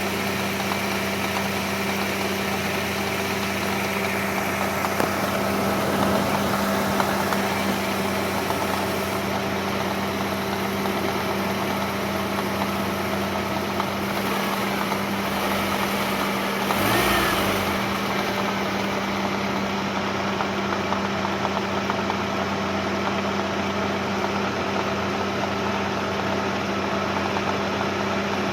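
ZMZ-409 inline-four petrol engine idling steadily with a knock, heard after its timing chain was replaced. It swells briefly louder about two-thirds of the way through.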